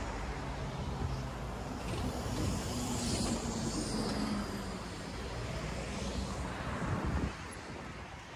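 Road traffic: a motor vehicle passing close by, with engine hum and tyre noise, that drops away abruptly about seven seconds in.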